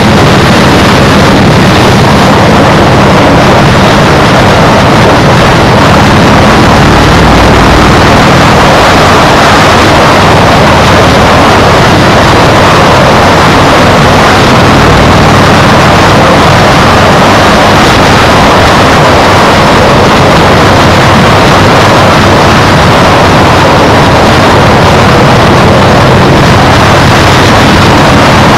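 Loud, steady wind rush buffeting a GoPro's microphone while riding, with a low steady hum underneath that is plainest in the first several seconds.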